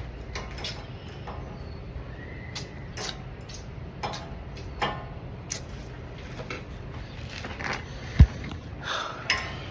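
Scattered metal clinks and clicks of hand tools and parts during work on a truck's wheel hub, with one sharp low thump about eight seconds in.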